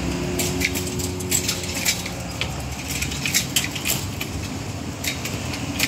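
Level crossing barrier rising, its hinged metal lattice skirt rattling and clinking in many irregular light clicks over a steady low hum.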